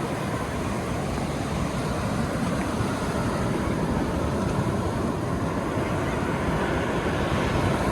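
Ocean surf on a beach, a steady rushing wash of waves, with wind buffeting the microphone.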